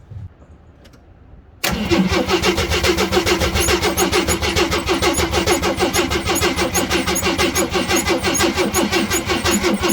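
The 1979 Jeep J10's 258 inline-six being cranked over by the starter, starting suddenly about a second and a half in and running on in a steady, even rhythm of about five beats a second without catching, as it tries to draw fuel up from a gas can through the fuel pump. The owner suspects a vacuum leak at a gap between the carburetor and the intake.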